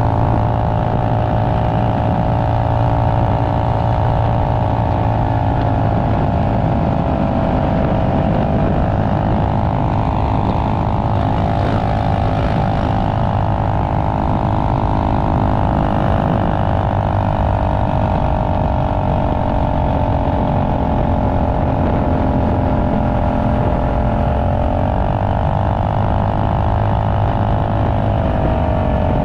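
Tillotson 225 cc single-cylinder engine of a TrailMaster Hurricane MB200X minibike, running hard at steady high revs while riding along. Its pitch sags slightly a few times and picks back up.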